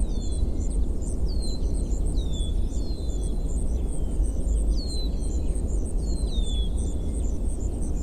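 Night-time ambience: a steady low rumble, with insects chirping in a fast, regular pulse and a bird giving short falling whistles about once a second.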